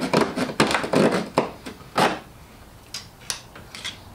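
Small hobby razor saw cutting through a fiberglass fuselage skin: quick back-and-forth rasping strokes, about three a second, for about two seconds, then the sawing stops and a few light clicks follow.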